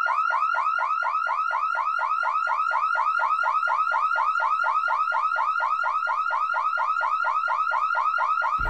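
Electronic alarm sound effect: a fast, steady run of short rising beeps, about five a second, that cuts off near the end.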